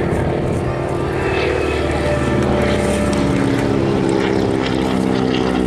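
Boeing Stearman biplane flying overhead: its 450-horsepower Pratt & Whitney R-985 radial engine and Hamilton Standard propeller give a steady, loud drone, and the note falls slowly in pitch in the second half.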